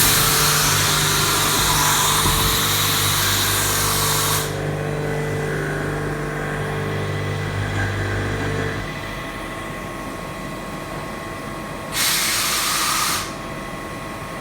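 CNC milling machine running during thread milling of an M30 thread, with a steady hum and a loud spray-like hiss that cuts off about four seconds in. The hum drops away about two-thirds of the way through, and a short burst of hiss comes near the end.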